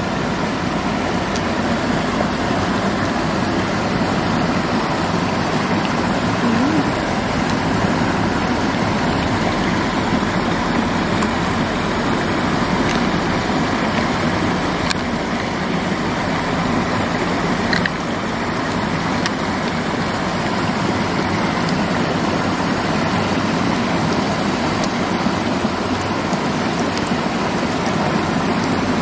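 Steady rushing of flowing river water, with a few faint clicks.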